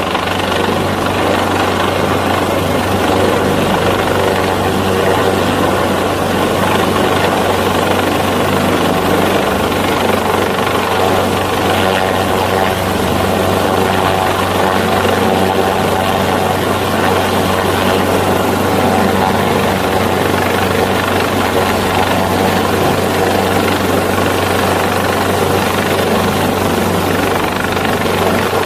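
Mountain rescue helicopter hovering overhead, its rotors and engine making a loud, steady drone that does not change.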